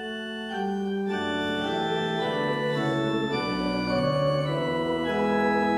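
Church organ playing a slow passage of held chords that change every second or so, starting suddenly and filling out about a second in.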